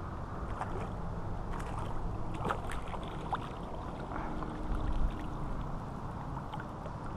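Hooked rainbow trout splashing at the water's surface as it is drawn in and netted: scattered small splashes and drips over a steady low rumble, with a louder low thump about five seconds in.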